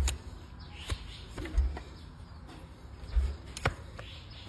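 Hoof trimming on a donkey's overgrown hoof: a handful of sharp clicks and cracks as the blade cuts into the horn, with low thuds recurring about every second and a half.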